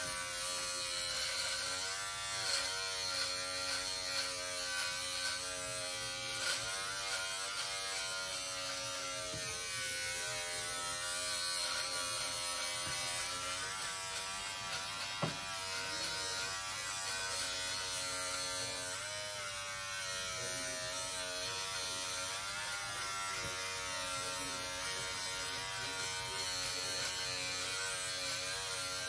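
Braun 6-in-1 electric shaver running steadily while cutting hair, a continuous buzz whose pitch wavers now and then.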